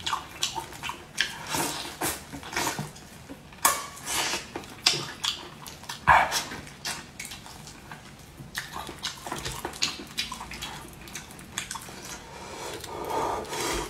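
Close-up eating sounds: lips smacking and sucking wet, saucy braised anglerfish meat off the bones, as short irregular clicks and slurps.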